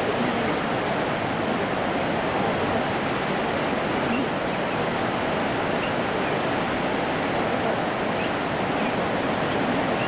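Steady rushing noise of Victoria Falls, the Zambezi pouring into its gorge: an even wash of water sound that holds the same level throughout.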